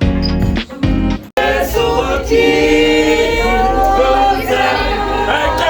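Music with a beat that cuts off abruptly, then a group of voices singing together in long held notes, like a choir singing gospel.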